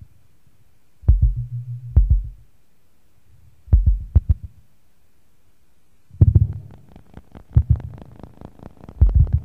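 Noise music from a cassette: deep low bursts studded with sharp clicks, the first holding a steady low drone, separated by quiet gaps. The third burst, about six seconds in, is longer, and the clicks in it come thick and fast with crackle between them.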